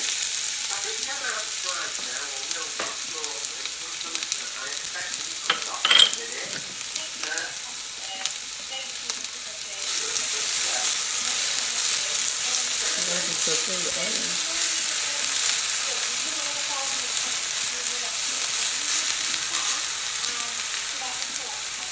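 Chopped onions sizzling in hot oil in a skillet while being stirred with a silicone spatula. There is a sharp knock about six seconds in, and the sizzle gets louder about ten seconds in.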